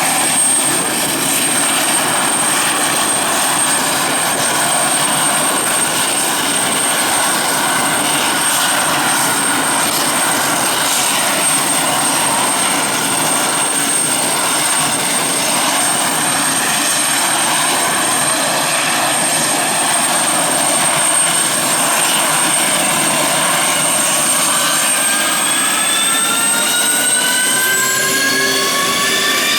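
F-16 fighter jet engines running on the ground: a steady loud roar with a constant high whine. Over the last few seconds several pitches rise together as an engine spools up.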